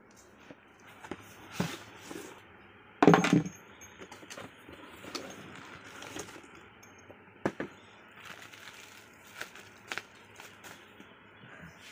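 Handling noise from unpacking a cardboard box and a plastic-wrapped manual: scattered knocks, scrapes and rustles, the loudest a short cluster of knocks about three seconds in and a sharp knock about halfway through.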